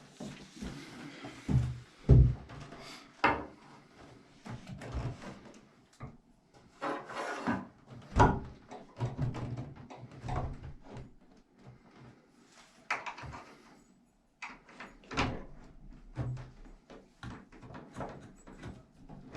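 Irregular knocks, clunks and metal clicks of a solid wood interior door being lifted and shifted on its hinges while the hinge leaves are worked into line and a hinge pin is fitted, with two heavier thuds about two and eight seconds in.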